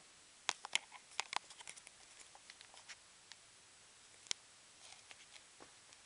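Irregular sharp clicks and light taps, a quick cluster in the first half and a few more later, with one louder click a little past four seconds in.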